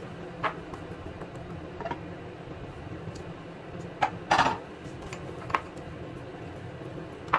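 A frying pan knocking against the metal grate of a gas hob as it is handled and lifted off, with a handful of sharp clicks and knocks. The loudest is a short clatter about four seconds in, over a steady low hum.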